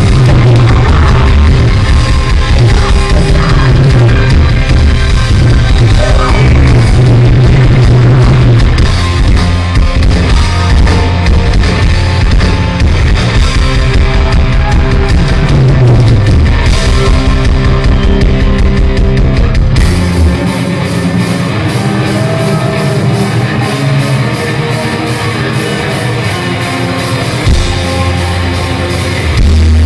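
Heavy metal band playing live with distorted electric guitars, bass and drums, recorded loud from the audience. About twenty seconds in the low end drops out, leaving a thinner, quieter passage, and the full band comes back in near the end.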